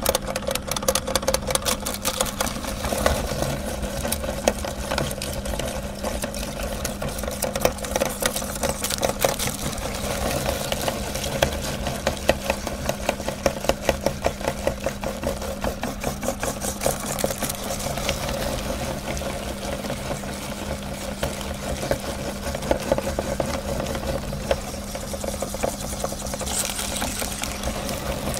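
Metal meat grinder running continuously with a steady hum and dense, fast clicking and clattering as it grinds chocolate-coated ice cream bars and forces them through the cutting plate.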